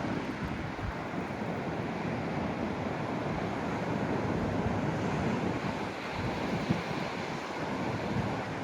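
Ocean waves breaking and washing in strong wind, with gusts buffeting the microphone in a low, fluttering rumble. One short gust bump comes about two-thirds of the way through.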